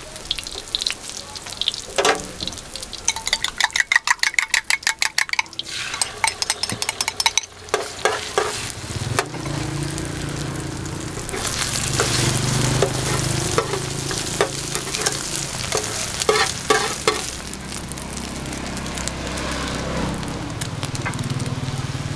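Food sizzling on a flat steel griddle, with metal tongs and a spatula clacking and scraping on the hot plate. A fast run of clacks comes a few seconds in, then a steadier sizzle as an egg fries, broken by more scrapes.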